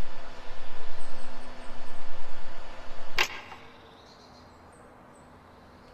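Whelen 4004 electronic outdoor warning siren sounding a rapidly fluttering tone in roughly one-second swells. The tone cuts off with a sharp click about three seconds in.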